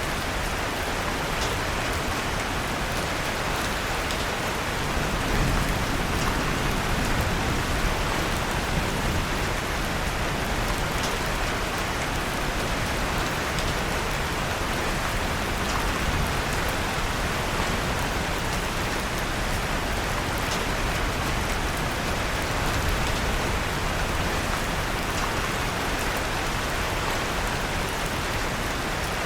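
Steady rain falling on a surface, with faint scattered crackles of a wood fire and a slight low swell about five seconds in.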